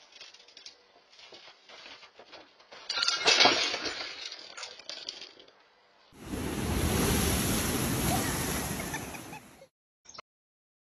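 A basket of goods dropped onto wooden porch steps, its contents clattering and breaking in a crash about three seconds in. It is followed by a steady rushing noise lasting about three and a half seconds.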